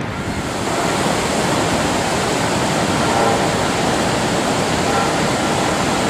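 Steady roar of rushing water from Niagara Falls and its rapids.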